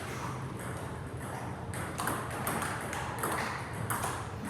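Table tennis rally: a celluloid ball clicking sharply off the rackets and the table, a hit about every half second.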